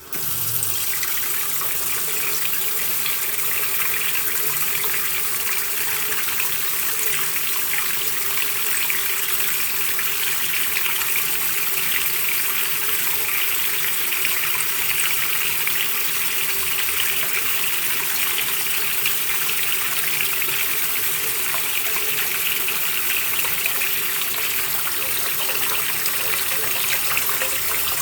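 Bathroom washbasin tap turned on suddenly, then running steadily with water splashing into the basin.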